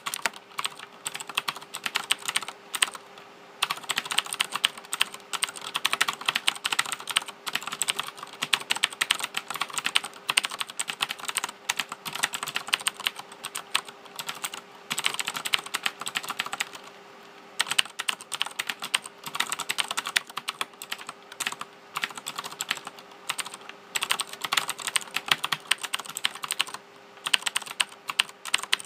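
Fast typing on a Razer BlackWidow 2013 mechanical keyboard: a dense, continuous stream of key clicks, broken by a few short pauses.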